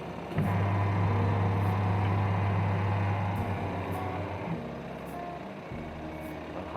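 SAP washing machine's electric motor running with a steady hum that steps up about half a second in and eases off after about three and a half seconds. It is running normally again after its capacitor was replaced.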